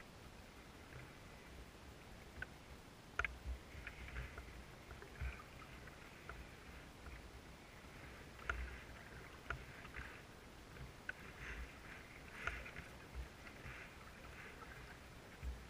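Canoe being paddled on calm water: faint, irregular splashes and drips of paddle strokes every second or two, with a few sharp knocks and low thuds against the hull.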